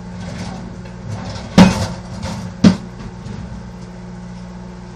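Microwave oven running with a steady hum while popcorn cooks. Two loud sharp knocks land about a second apart near the middle.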